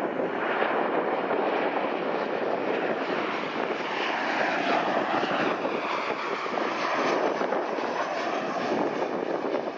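Boeing 737-800 freighter's CFM56-7B turbofan engines on landing approach: a steady jet rush, with a faint whine sliding in pitch midway.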